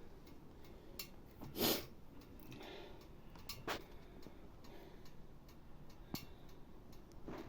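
Mostly quiet with a few faint, scattered clicks and one short puff of noise about one and a half seconds in.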